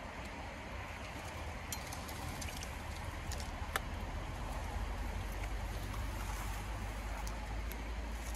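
Shallow pond water sloshing and splashing around a wader's legs and hands as a body-grip trap is lowered into it, over a steady low rumble, with a few sharp clicks.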